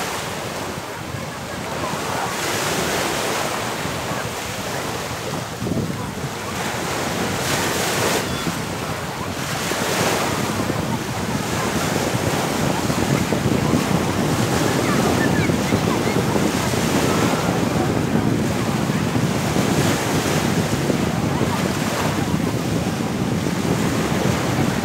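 Small waves breaking and washing up on a sandy, pebbly shore, surging every few seconds, with wind buffeting the microphone.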